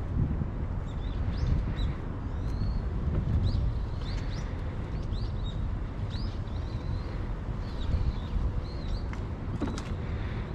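Small birds chirping again and again over a steady low rumble and a faint steady hum.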